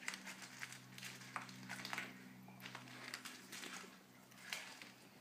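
Fancy rats fishing peas out of water and eating them: faint, irregular wet clicks, squishes and crunches over a steady low hum.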